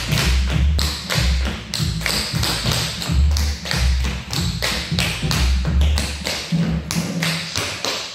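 Several dancers' tap shoes striking a wooden floor in a fast, continuous run of sharp metal taps during a tap-dance warm-up routine, with background music underneath.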